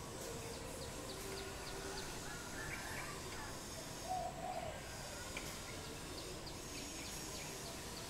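Steady outdoor ambience with faint, scattered bird calls: a few short chirps about two and a half seconds in, and a brief lower call about four seconds in.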